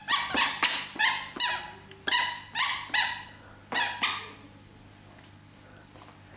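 Squeaky shoes squeaking with each step: about ten short, high-pitched squeaks in a walking rhythm, stopping about four seconds in.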